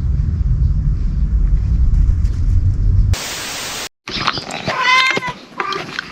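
A steady low rumble, cut off about three seconds in by a short burst of hiss and a brief dropout. After that, a cat meows about twice near the end.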